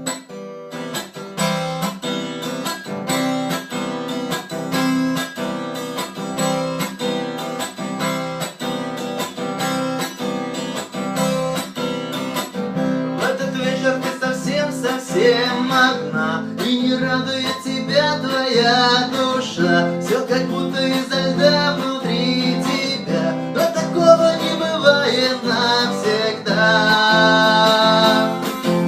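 Acoustic guitar playing a picked instrumental introduction to a song, with a steady run of plucked notes. About halfway in, a higher, wavering melody line joins over the guitar.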